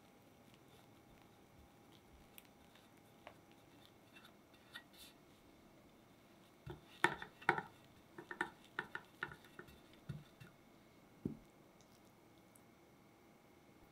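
Quiet cake-making handling sounds: faint spreading of cream with a palette knife, then a run of sharp clicks and taps of metal utensils in the middle, and one dull knock near the end.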